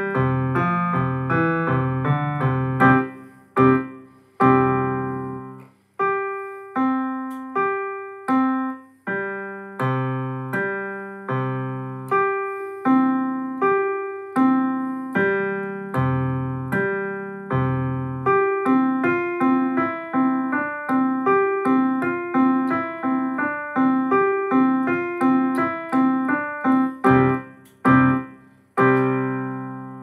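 Electronic keyboard on a piano sound playing a simple two-handed piece: a melody over steady low notes, each note struck and dying away. A final chord near the end rings and fades out.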